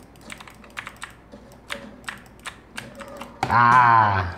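Computer keyboard keys and gaming mouse buttons clicking irregularly in fast gameplay. About three and a half seconds in, a man laughs out loud for about a second.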